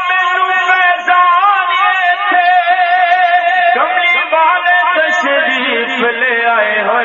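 A man's voice sings a devotional naat through a microphone and PA, in long held notes with wavering melismatic turns and no clear words, and a rising glide about four seconds in.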